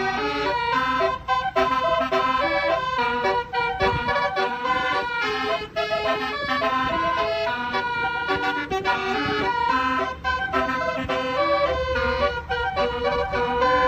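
A bus's multi-tone 'telolet' basuri horn playing a fast melody of short, changing notes.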